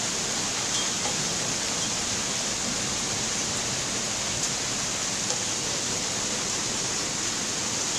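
Hailstorm: hail and rain pelting down in a steady, dense hiss, with a couple of sharper ticks standing out.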